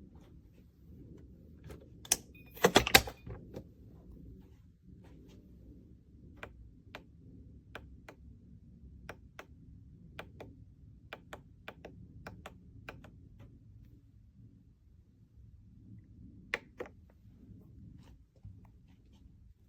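Clicks and knocks from handling hard objects: a burst of loud knocks and clatter about two to three seconds in, then scattered light clicks and taps, roughly one or two a second, over a low hum.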